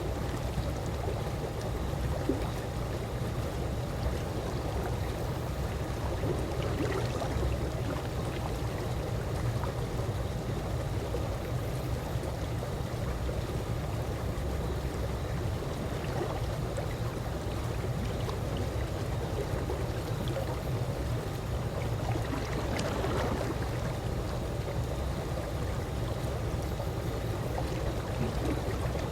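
Calm swimming-pool water lapping and trickling steadily over a low rumble, with soft splashes about a quarter of the way in and again about three quarters in.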